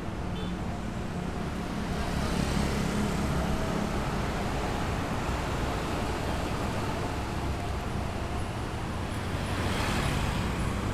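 Busy street traffic: motor vehicles passing with a steady engine hum and tyre noise. It swells as a vehicle passes close about two seconds in, and again near the end.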